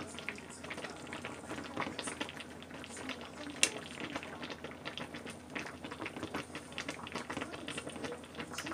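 Sukiyaki broth boiling in a pot, a dense crackle of small bubbles popping, with a single sharp click about three and a half seconds in.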